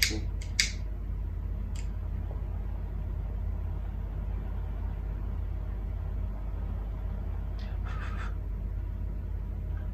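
A pocket lighter clicks and hisses a few times in the first second, setting a marshmallow on a skewer alight, with a single click about two seconds in. After that there is only a steady low hum. About eight seconds in comes a short puff of breath, blowing out the burning marshmallow.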